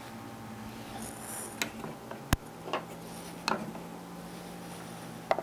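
Creative Industries Model MP electric potter's wheel humming steadily under a bowl being thrown; about two seconds in, at a sharp click, the hum drops to a lower pitch. A few more short sharp clicks and taps.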